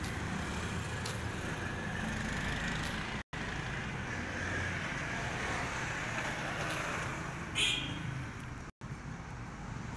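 Steady background noise with a low rumble, picked up by a phone's microphone during a screen recording; a short hiss comes about seven and a half seconds in, and the sound cuts out for an instant twice.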